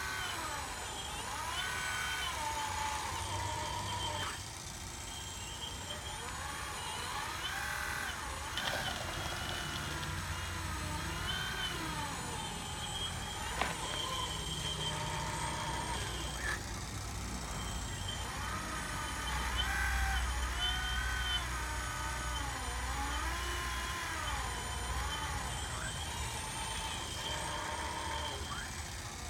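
Radio-controlled hydraulic excavator (Hitachi Zaxis 460 model) working: the whine of its hydraulic pump keeps rising and falling in pitch as the arm and bucket move under load. A few short clicks or knocks come through, and a low rumble swells about two-thirds of the way in.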